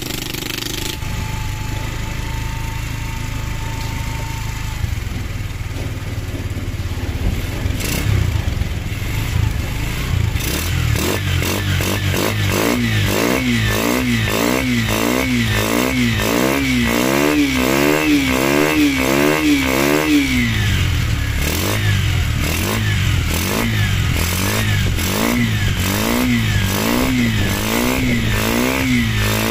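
Yamaha XTZ125 single-cylinder four-stroke engine, bored out to 182cc, running on its first test after a rebuild. It runs steadily at first. From about ten seconds in the throttle is blipped over and over, the revs rising and falling about one and a half times a second, with a short pause about two-thirds of the way through.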